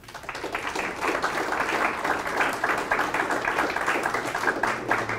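Audience applauding, a dense patter of many hands clapping that builds up over about the first second and then holds steady.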